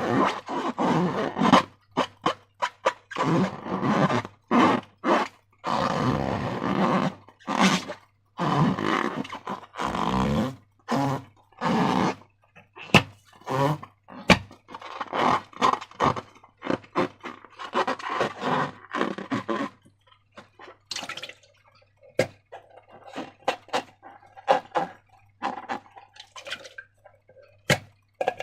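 Slime being squished and worked by hand, wet squelching in irregular bursts with a few sharp clicks; quieter near the end.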